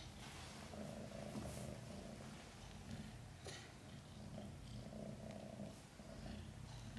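Mother cat purring steadily while tending her newborn kitten, with a few brief licking sounds near the start, about a second and a half in and about three and a half seconds in.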